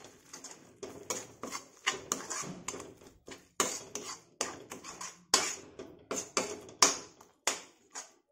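A metal spoon stirring a thick dal paste in a metal kadhai, its edge clinking and scraping against the pan about twice a second as spices are mixed in.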